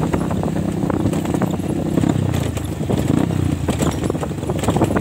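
DTM 150 dirt bike engine running under way on a bumpy dirt trail, with frequent short knocks and rattles throughout.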